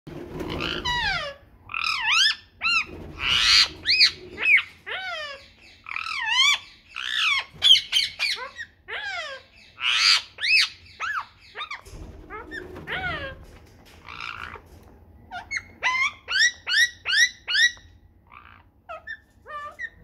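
Indian ringneck parakeet calling: many short, high calls in quick runs, each gliding up and down in pitch, with a brief lull about halfway through.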